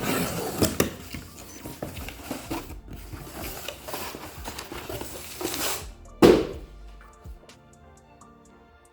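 Parcel packaging rustling and crinkling as it is torn open, with one loud thud about six seconds in, over background music.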